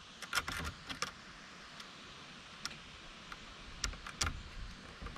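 Irregular light clicks and taps of a screwdriver and metal parts as a screw is started into a face-guard clip on a batting helmet: a quick cluster about half a second in, then single clicks spread through the rest.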